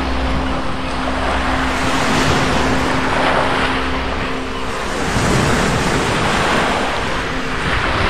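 Rough sea waves breaking on a beach, a continuous wash of surf that swells every second or two. A steady low hum sits underneath and drops out about halfway through.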